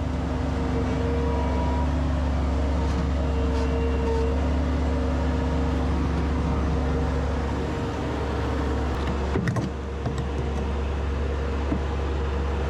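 Bobcat S450 wheeled skid-steer loader's diesel engine running steadily under light grading work, with a brief knock and dip in the engine sound about nine and a half seconds in.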